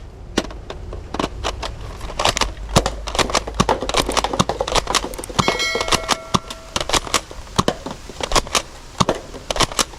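Toy guns clicking and clattering as they are handled: a fast, uneven run of sharp clicks and rattles, with a brief steady electronic tone a little after halfway through.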